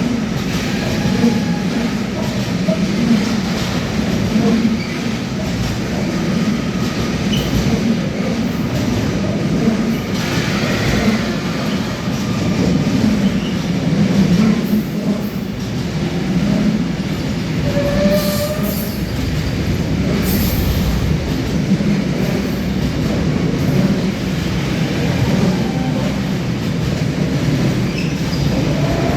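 Intermodal freight train carrying truck trailers rolling through a station over a steady rumble, its steel wheels squealing against the rails in short high tones that come and go, loudest about a third of the way in and again past the middle.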